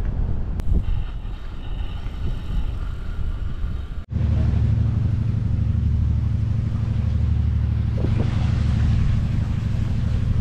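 Wind rumbling on the microphone for about four seconds. After an abrupt cut, a moored car ferry's diesel engines run with a steady, loud low drone.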